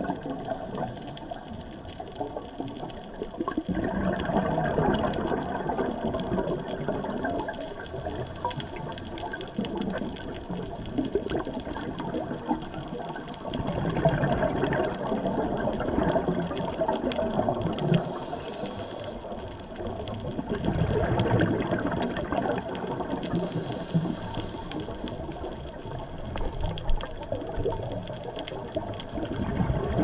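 Scuba diver's regulator underwater: exhaled air bubbles gurgling in swells that come and go every several seconds with the breathing.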